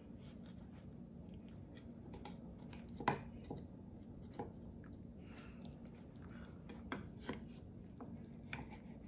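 Kitchen utensils, a wooden spatula and a slotted turner, scraping and clicking against a glass baking dish as a square of crisp-edged baked ziti is pried loose. The clicks come irregularly, with the sharpest about three seconds in.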